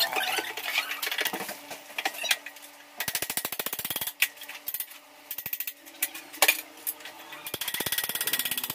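Hand-tool work at the base of a stripped kitchen counter: bursts of rapid scraping or rattling strokes, about three seconds in, again around five seconds and near the end, with a few single sharp knocks between them.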